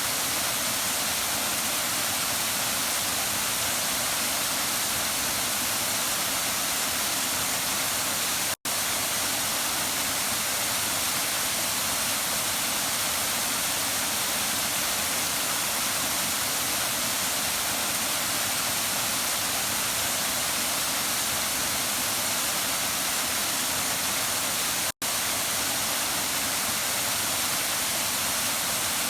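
Waterfall: a steady, hissy rush of falling water with little bass. It cuts out completely for a split second twice.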